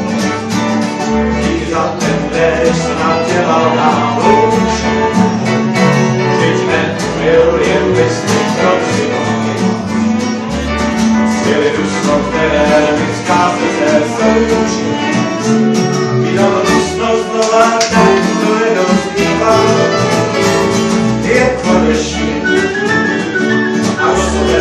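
Live acoustic swing music from a small band, with guitar and cello playing a tune at a steady beat.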